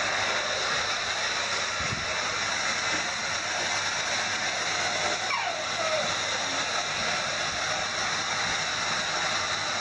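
Handheld hair dryer blowing steadily on a long-haired cat's wet coat.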